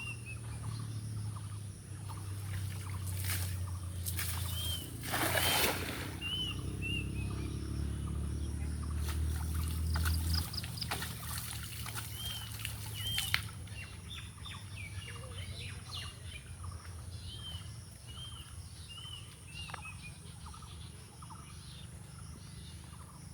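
A bird calling again and again in short arched chirps, in clusters of two or three, over outdoor ambience. A low rumble runs through the first ten seconds, and there are a few rustling noise bursts, the loudest about five seconds in.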